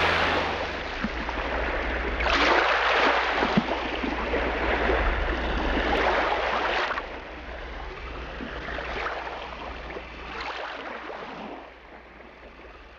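Rushing water surging and ebbing in swells every few seconds, over a steady low hum, fading out near the end.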